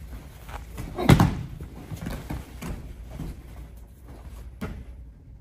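A heavy thud about a second in as a body hits a padded martial-arts mat, then softer bumps and scuffs of bodies and cotton gi on the mat as the partner is pinned.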